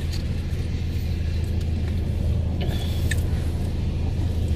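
Steady low rumble of a car's idling engine, heard inside the car's cabin, with a few faint clicks.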